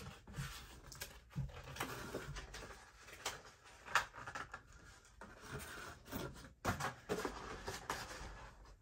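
Rustling and scraping with scattered sharp clicks, irregular and close to the microphone: objects being handled and unpacked.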